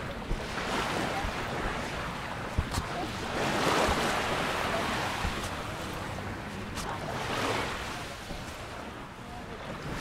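Small sea waves washing onto a sand-and-pebble shore, swelling and ebbing about three times, around one, four and seven and a half seconds in. A few light crunching footsteps on the sand and pebbles.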